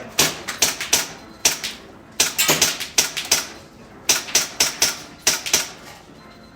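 Gas blowback airsoft pistol being fired quickly: about a dozen and a half sharp shots in uneven runs with short gaps, stopping shortly before the end.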